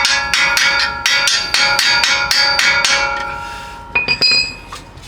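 Rapid hammer blows, about four or five a second, on a steel ball joint separator, with the metal ringing after each strike, driving the tool to pop the ball joint from the knuckle of a 2015 Subaru Forester's lower control arm. The run stops after about three seconds, and a few higher-ringing strikes follow near the end.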